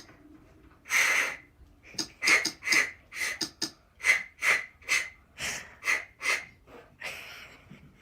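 A dog breathing noisily in a run of short, breathy huffs, about two a second at an uneven pace, starting about a second in.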